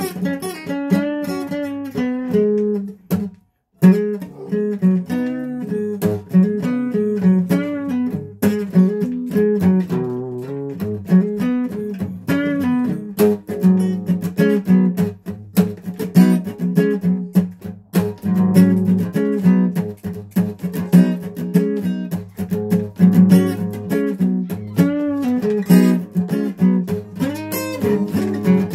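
Guitar being played, with picked notes and strummed chords. It stops briefly about three seconds in, then plays on without a break.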